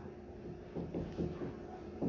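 Faint marker strokes on a writing board: a few soft scratches about a second in, over a low steady hum.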